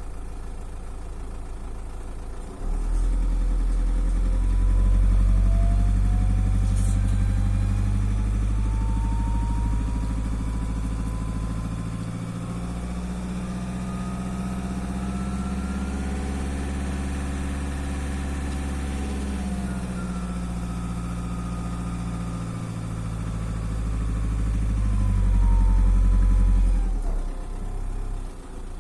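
Volkswagen Passat B6 2.0 TDI diesel engine revved up from idle about 3 seconds in, held, and let back down to idle near the end, with a whistle that slowly rises in pitch and later falls. The owner puts the whistle down to a turbocharger problem.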